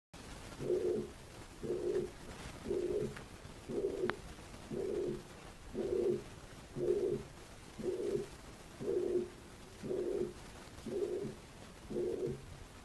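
Stethoscope recording of a body sound: a short, low-pitched tonal sound that repeats evenly about once a second, twelve times over.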